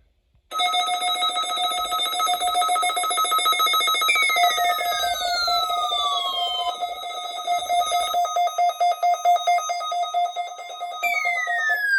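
Loud electronic alert tone: a steady pitched tone with a fast pulsing flutter, with a falling sweep about four seconds in and another near the end. It starts and stops abruptly.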